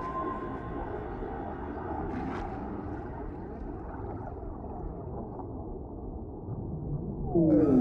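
Produced deep-ocean underwater ambience: a steady low rumble, with a faint high tone fading out just after the start. Near the end a louder call starts, gliding downward in pitch.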